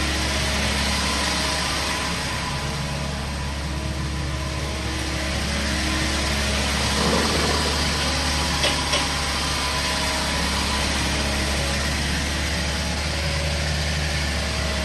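Diesel engine of a Caterpillar 307.5 mini excavator running steadily, with two short clicks about nine seconds in.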